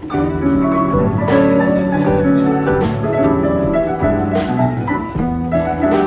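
Instrumental background music: sustained keyboard-like notes, with a new chord struck about every one and a half seconds.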